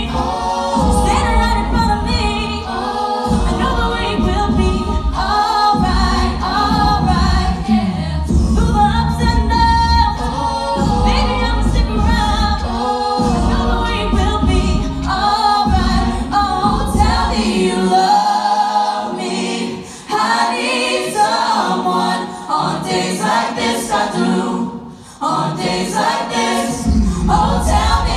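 Mixed-voice a cappella group singing in parts, carried by a strong low bass line. The low bass drops out for several seconds past the middle and comes back near the end.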